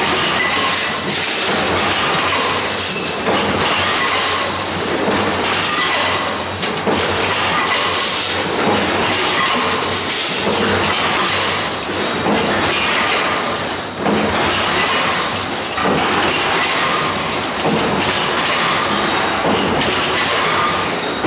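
Cold forging machine running, heading steel wire into shear stud blanks: a loud, continuous metallic clatter.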